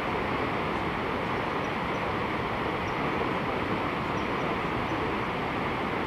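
Steady rushing noise of a tall plunge waterfall falling into a deep gorge, unbroken and even in level throughout.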